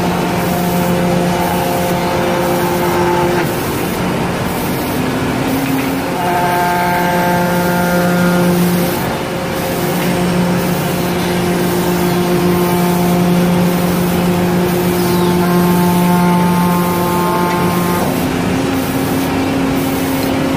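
CNC router-bit scroll saw cutting a curved profile through a thick wooden board: the spindle and its thin router bit run with a steady whine whose pitch steps down and up a few times.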